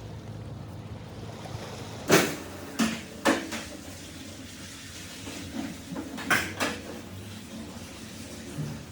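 Several sharp knocks or clatters, a group of three about two to three and a half seconds in and two more around six and a half seconds, over a low steady hum.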